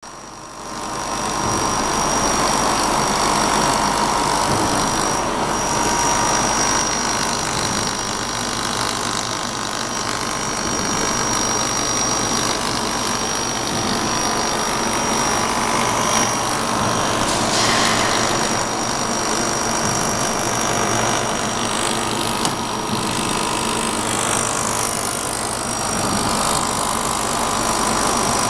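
Steady mechanical hum with a thin high whine over it: a laser welding machine and its cooling unit running.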